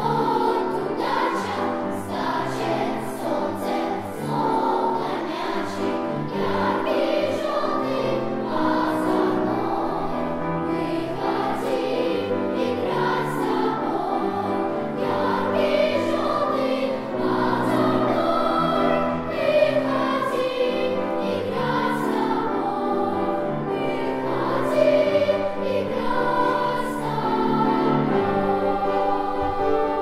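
A children's choir singing a song, with steady low accompanying notes beneath the voices.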